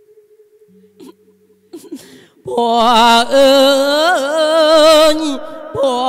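A monk's male voice singing an Isan chanted sermon (thet lae). After a quiet start with a faint low steady tone, it comes in loudly about two and a half seconds in, with long wavering notes, wide vibrato and sliding pitch.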